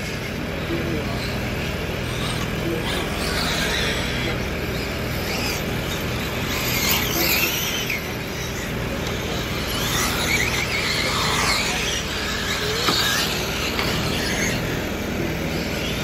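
Electric motors of 1/7-scale RC cars whining as they race around a paved track, the pitch repeatedly rising and falling as the cars accelerate down the straights and slow for the corners.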